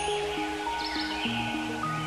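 Background instrumental music: a slow melody of held notes.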